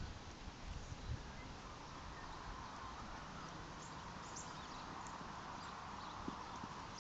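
Faint hoofbeats of a Thoroughbred horse moving over grass turf, over a steady outdoor hiss, with a couple of low thumps in the first second.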